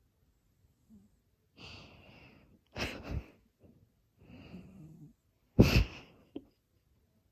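Sleeping house cat snoring: four noisy, hissing breaths a second or so apart, the last one sharper and much louder.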